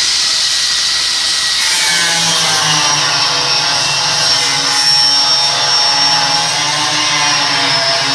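Angle grinder running continuously on steel, a loud steady high whine over a grinding noise, its tone changing about two seconds in.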